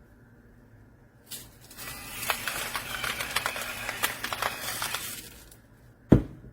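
Electric salt and pepper grinder in use: a gritty crunching rattle with many small clicks for about four seconds, then a single sharp knock near the end.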